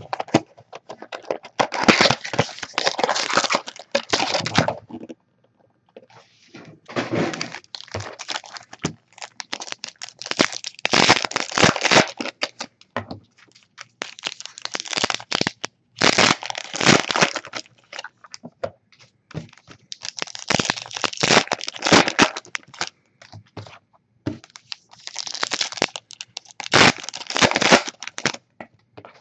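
Foil trading-card pack wrappers crinkling and tearing as packs are handled and opened by hand. The noise comes in repeated bursts of a few seconds each, with short pauses between them.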